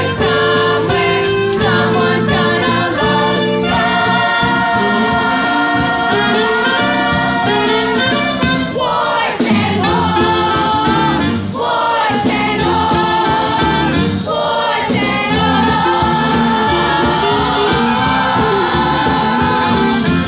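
Middle school chorus singing a musical-theatre show tune in unison and harmony over instrumental accompaniment with percussion.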